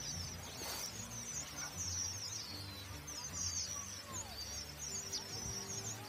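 A flock of red avadavats (strawberry finches) twittering in a continuous stream of short, high chirps, over background music with low sustained notes.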